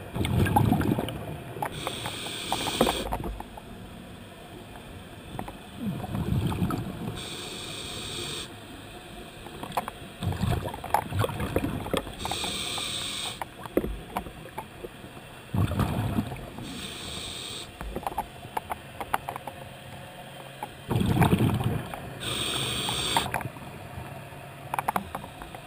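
A scuba diver breathing through a regulator, recorded underwater: each breath is a short high hiss followed by a low, crackling burst of exhaust bubbles. The cycle repeats about every five seconds, five times over.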